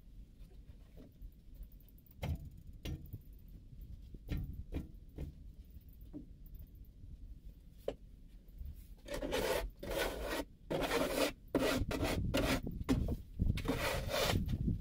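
Scattered light clicks, then from about nine seconds in a run of louder, irregular rubbing and scraping sounds.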